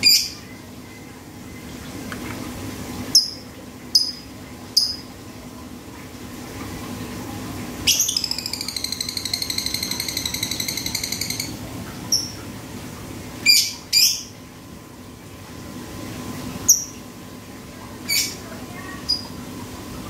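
Male Fischer's lovebird giving sharp, high single calls. About eight seconds in, it breaks into a fast, even ticking trill lasting about three and a half seconds. This is the 'ngetik' call, likened to a lato-lato clacker, of a male in strong breeding condition.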